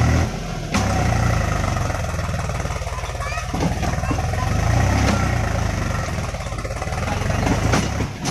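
Farm tractor's diesel engine running hard under the load of a full sand trolley, its rumble swelling and easing; it dips briefly just under a second in and drops off near the end.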